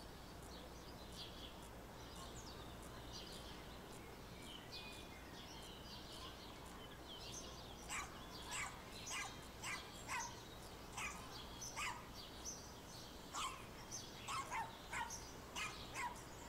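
Faint bird chirps, then from about halfway a dog barking over and over, about two barks a second, in the background.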